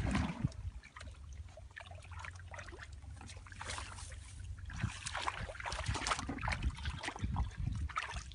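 Shallow muddy water in a rice-paddy channel sloshing with small irregular splashes as feet and hands move through it.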